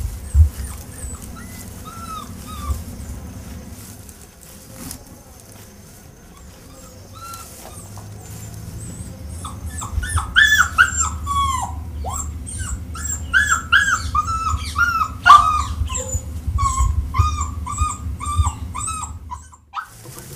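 A dog whimpering and yelping in short, high, downward-bending calls. A few calls come early, then a quick run of them starts about halfway and stops abruptly near the end, over a low steady rumble.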